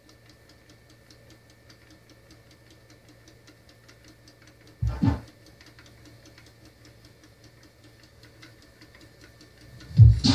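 Cassette deck of a CCE SHC 2500 3-in-1 stereo running: a faint steady hum with a rapid, even light ticking, and a single clunk about halfway through. Loud music from the tape comes in near the end.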